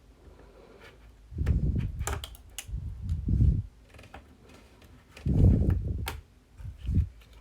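Small sharp clicks and dull low bumps of hand-tool work on an iPhone SE, as its screen's ribbon-cable connectors are pried off the logic board.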